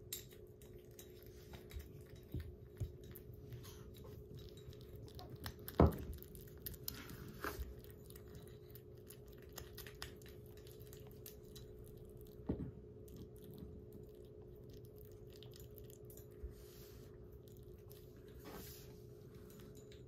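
A kitten eating wet weaning food from a ceramic bowl: many faint small chewing clicks. A sharp knock comes about six seconds in, the loudest sound, and a smaller one about twelve seconds in.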